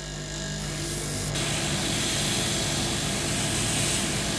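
Gravity-feed airbrush hissing as it sprays a fine line of paint. The hiss builds over the first second or so, then holds steady, over a steady low hum.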